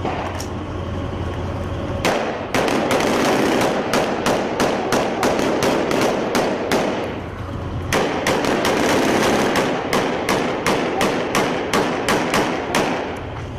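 Rifle gunfire: a long run of single shots at about three a second, starting about two seconds in, with a pause of about a second just past the middle. Before the shooting begins there is only a rushing noise.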